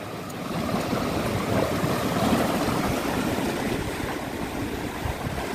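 Sea waves washing and splashing over shoreline rocks: a steady rush of surging water that swells a little about a second in.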